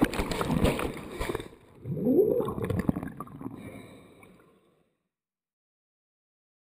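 Sea water sloshing and gurgling around a camera at the waterline, in two surges, fading out about four and a half seconds in.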